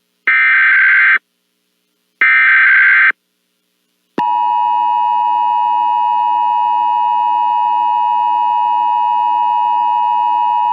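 Emergency Alert System test: two harsh, buzzy SAME digital header bursts about a second apart, then, about 4 s in, the steady two-tone EAS attention signal that carries on unbroken.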